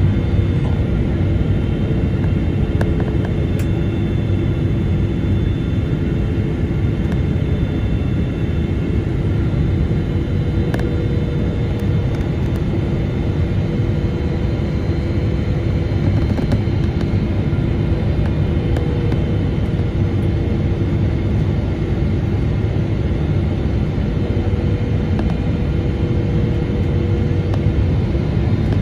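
Twin-engine jet airliner heard from inside the passenger cabin during final approach and the landing roll: a steady rumble of engines and airflow, with several steady whining engine tones above it.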